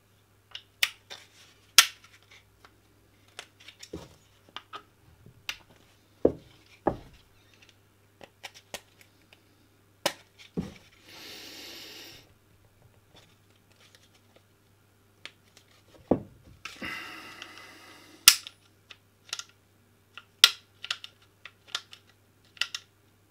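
Glock pistol parts being handled and fitted back into the polymer frame: a string of irregular sharp clicks and clacks of metal and plastic, with two brief scraping noises partway through.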